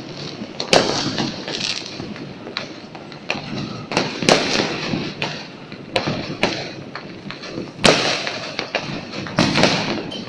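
Fireworks going off: irregular sharp bangs, roughly one a second, over a steady background noise.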